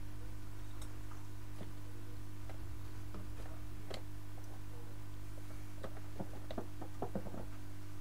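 Steady low hum of microsoldering bench equipment, with scattered light clicks and ticks that come in a quick cluster about six to seven and a half seconds in.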